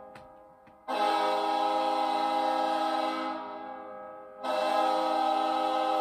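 New York Islanders' goal horn, a recording of the arena horn sounding several steady tones at once. One long blast starts suddenly about a second in and fades away, and a second blast starts suddenly about four and a half seconds in.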